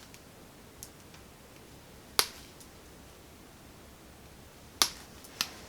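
Sharp snips of a wire stripper cutting and pulling insulation off the ends of small electrical wires, four in all, the loudest about two seconds in and near the end.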